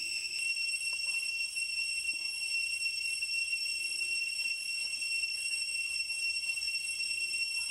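Steady high-pitched insect drone, with faint scrapes and light taps of a cleaver blade on crocodile hide.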